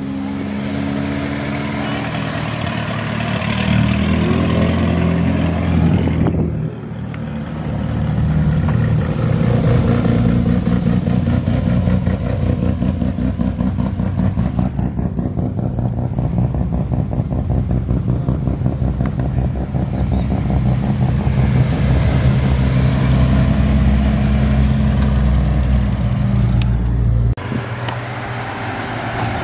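Classic Japanese cars' petrol engines running and revving as the cars pull away and drive past one after another. The sound changes suddenly about six seconds in and again near the end, as a different car takes over.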